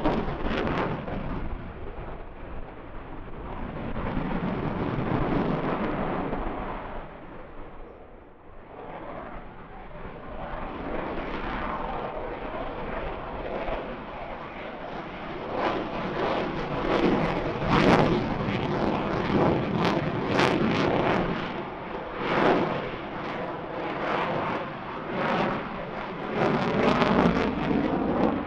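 Lockheed Martin F-22 Raptor's twin Pratt & Whitney F119 turbofans roaring as the fighter maneuvers overhead. The roar swells and fades, dips briefly, then grows louder about halfway through with sharp, repeated crackling.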